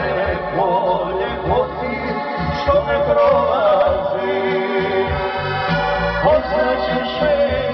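Live folk music from a small band: an accordion and Korg keyboard carry a wavering, ornamented melody over pulsing bass notes.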